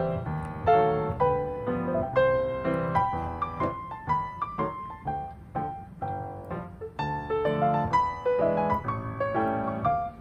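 Piano music: a melody of struck notes, each fading after it is played, over low chords.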